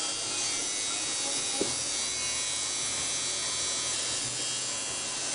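Tattoo machine buzzing steadily while the needle works into skin, with one short knock about one and a half seconds in.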